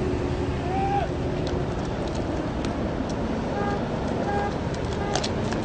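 Steady low rumble of vehicle engines and road noise on a street, with a few brief high tones and a cluster of faint clicks near the end.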